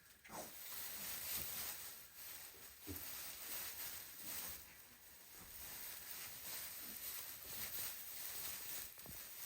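Faint, uneven rustling of loose straw as mini pigs move about in their new straw-filled bed.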